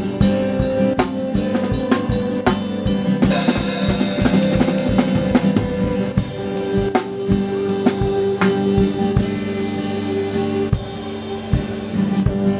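Drum kit playing a steady beat with kick and snare in a live band, over held chords from the other instruments. A cymbal crash comes in about three seconds in.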